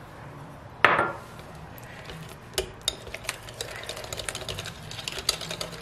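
Wire whisk beating egg yolks into a thick batter in a glass bowl: a fast, irregular run of small clicks and scrapes as the wires hit the glass. It starts about two and a half seconds in and gets busier. A single sharp knock comes about a second in.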